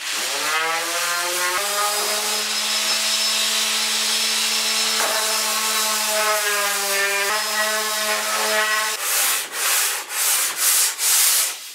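Random orbital sander running on a hardwood cabinet frame: a steady motor whine with a rushing sanding noise that shifts slightly in pitch as the pad is pressed on. It stops about nine seconds in and gives way to several short rasping strokes of hand sanding on the frame's edge.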